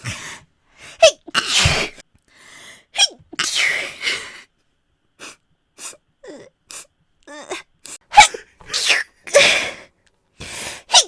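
A woman sneezing again and again: a run of separate sneezes of varying strength, several loud, with short pauses between.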